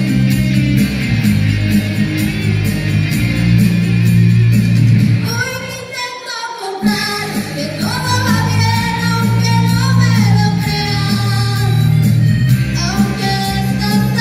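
Music, and about five seconds in a woman starts singing into a microphone. As her voice comes in, the bass drops out for a moment, then the accompaniment returns under her singing.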